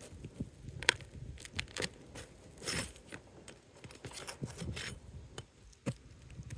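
Asphalt roof shingles being worked loose by hand with a tool: scraping, crinkling and tearing noises broken by irregular sharp clicks.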